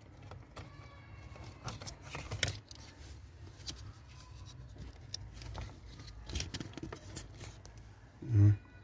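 Faint small clicks and scrapes of hands working a car wiring plug, pulling the wire and its pin out from the back of the connector.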